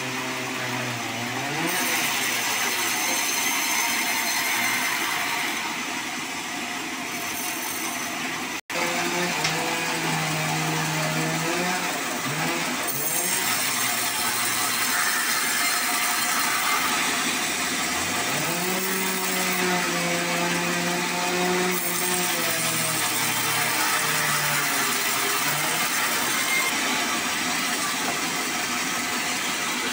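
Large vertical band saw running and cutting sonokeling (Indian rosewood) into boards. A steady rasp of the blade runs over a low drive hum that dips and rises in pitch as the cut loads it, and the sound drops out for an instant about nine seconds in.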